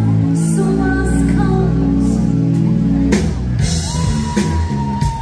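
Live band playing an upbeat rock song through loudspeakers: drums, bass and singing, with one long held note near the end.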